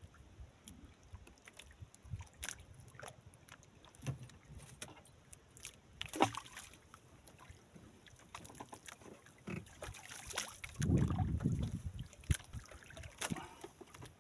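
Light knocks and clicks of hands, line and gear against the wooden hull of a small outrigger boat at sea, a sharp knock about six seconds in, and a louder low rumble for a second or so near the end.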